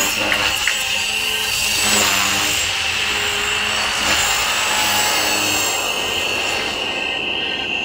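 Radio-controlled model helicopter flying overhead: a steady high rotor whine that shifts in pitch a couple of times as it passes and manoeuvres.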